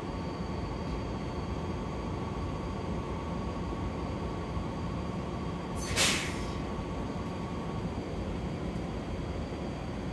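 E231-0 series electric commuter train with a Mitsubishi IGBT-VVVF inverter, running and heard from inside the car: a steady rumble with a thin steady whine that stops a little before the end. A short, loud hiss of air comes about six seconds in.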